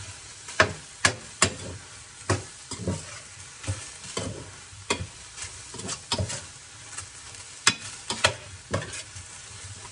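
Metal spoon scraping and knocking against a stainless steel Saladmaster electric skillet in irregular strokes as chicken fillet pieces are stirred, over a steady sizzle of the chicken frying without oil.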